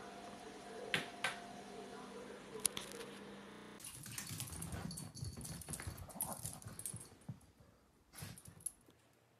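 A few sharp clicks over a steady electrical hum, then, about four seconds in, a small dog and a cat scampering on a hardwood floor: a rapid clatter of paws and knocks that fades near the end.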